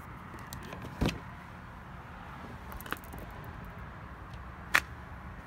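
A 2019 Ford F-150 pickup's door hardware: a heavy clunk about a second in, a light click near three seconds, and a sharp, louder click near the end, as the door is worked open.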